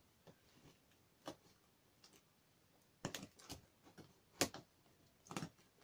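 Trench knife blade picking and scraping at packing tape on a cardboard box: scattered small clicks, scratches and taps, the loudest about four and a half seconds in.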